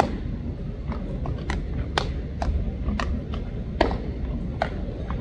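Baseballs popping into leather gloves as several players play catch, sharp pops coming about two a second at uneven intervals over a steady low rumble.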